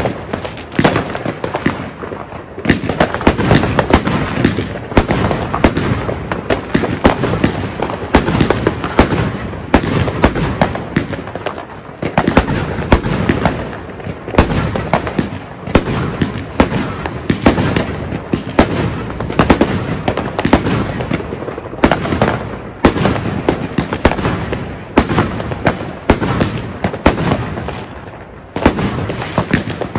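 El Gato De Colores firework going off in a rapid, unbroken string of cracks and bursts, several a second. There are brief lulls about two and a half seconds in and again near the end.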